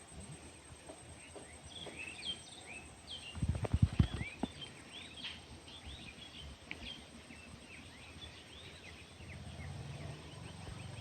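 Small birds chirping, with many short, quick calls. A few loud thumps about three to four seconds in, and a low steady hum comes in near the end.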